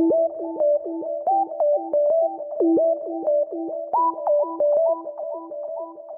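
Background electronic music: a synthesizer keyboard playing a quick repeating pattern of short notes, growing quieter near the end.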